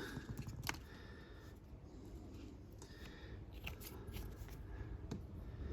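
Faint handling noise of small painting work: light scratching and rustling with a few sharp small clicks, about a second in, near the middle and near the end.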